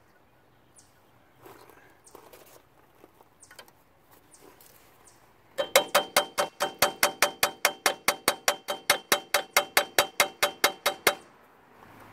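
A hammer rapidly tapping a steel punch against a rusty brake caliper on a 1994 Ford F350, about five ringing metal-on-metal strikes a second for some five seconds, to knock the caliper loose from the rotor. Before the strikes, only faint clicks of handling.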